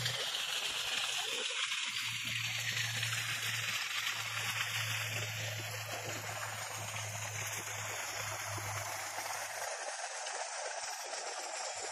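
Steady rushing of running water, like a stream, with a low hum underneath that stops near the end.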